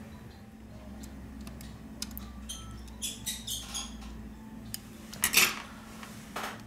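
Light metallic ticks and clicks of steel tweezers and small phone parts being handled on a tabletop, with one louder clatter about five seconds in.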